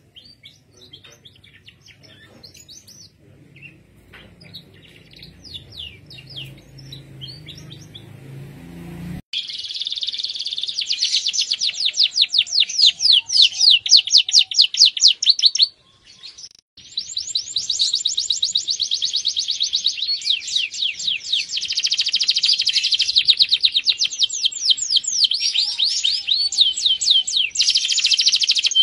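Male domestic canary singing. At first its chirps and short phrases are fainter, over a low hum. About nine seconds in there is an abrupt cut to loud, continuous rapid trills and rolls, which break off for about a second past the middle and then resume.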